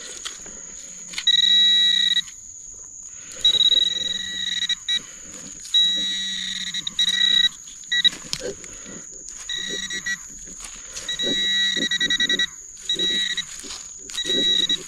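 A handheld metal-detecting pinpointer buzzing in repeated bursts of about half a second to a second as it is swept through the soil of a dig hole, sounding off on a small buried metal target, a flat button. A steady thin high tone runs underneath.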